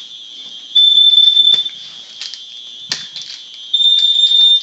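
Home smoke alarms going off under test. One sounds two long, loud, high-pitched beeps about three seconds apart, while another keeps up a fainter steady high tone underneath. Scattered clicks and knocks run through it.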